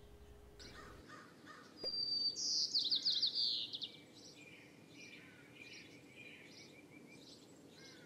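Birds singing: a loud, quick trill that falls in pitch starts about two seconds in and lasts about two seconds, followed by softer short chirps repeated at intervals.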